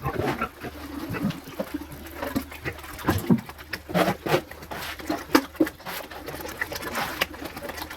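Pigs grunting, many short irregular grunts overlapping one another.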